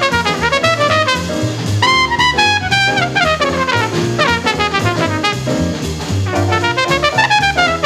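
Bebop jazz by a 1953 alto sax, trumpet, piano, bass and drums quintet: a single horn plays fast runs of notes over a walking bass and ride cymbal.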